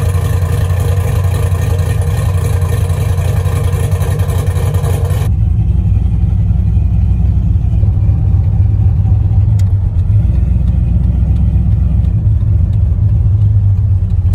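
Chevy Silverado pickup's engine running, heard from outside for about five seconds, then cutting to a steady low engine and road drone inside the cab as the truck is driven on wet roads.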